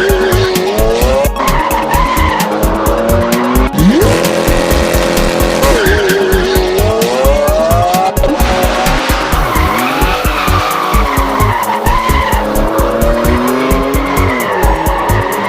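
Race-car sound effects, with engines revving up and down in pitch and tyres squealing, over background music with a steady beat.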